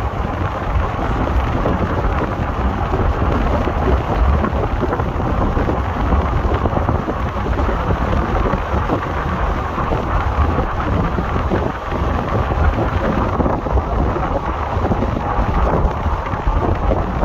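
Indian Railways passenger train running at speed, heard with the microphone out of the coach window: a steady rush of wind buffeting over the rumble of the wheels on the track.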